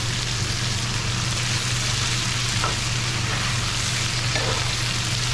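Sliced karela (bitter melon) with onion and garlic sizzling steadily in a stainless skillet, with a metal spoon stirring and scraping through it about halfway in.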